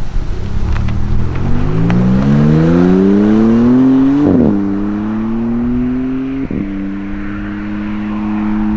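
Maserati MC20 Cielo's twin-turbo V6 accelerating hard away from a standstill. Its pitch climbs, then drops sharply at an upshift about four seconds in, climbs more slowly and shifts again about six and a half seconds in, then holds near steady.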